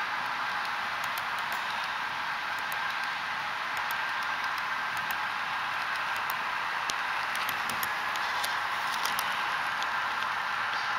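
HO scale double-stack well cars rolling along model track: a steady rolling hiss with scattered light clicks and ticks from the wheels on the rails.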